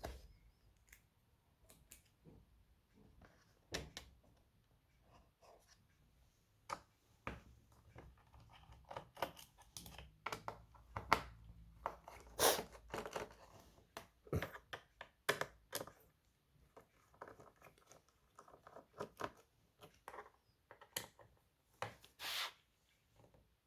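Scattered small clicks, taps and scrapes of hands working on an HP EliteBook 850 G5 laptop's case and parts, with a few longer scraping rustles.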